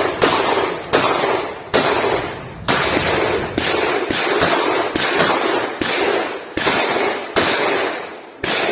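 Shotgun fired rapidly, about a dozen shots in quick succession at roughly one every two-thirds of a second, each with a long ringing echo.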